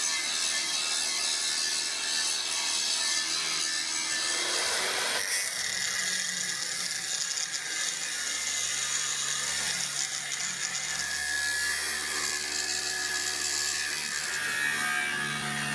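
A shop tool working steel: a steady, noisy run that changes character about five seconds in, with a low steady motor hum joining a few seconds later.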